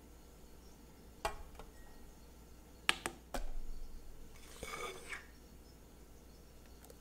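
Glass bowl clinking as it is set down on a metal-topped kitchen scale: a few sharp clinks, the loudest about three seconds in, with a dull knock just after, then a short scrape about a second later.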